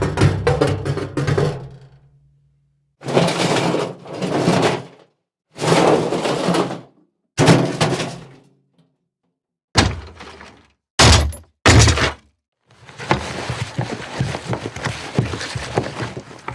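A string of separate impact sound effects, each followed by silence: heavy thuds with breaking, crashing debris, three short sharp hits about ten to twelve seconds in, and a longer crash of about four seconds near the end.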